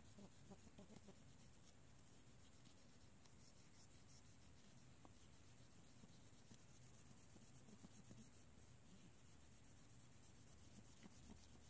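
Near silence with faint rubbing: a cotton swab wet with 91% alcohol scrubbing the metal shield plate on the back of an iPhone 6 display assembly, wiping off water-damage mineral residue.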